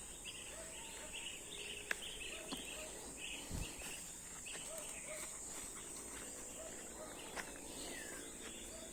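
Faint outdoor ambience: a steady high insect drone, with small birds chirping in short repeated calls, busiest in the first few seconds, and a few faint clicks.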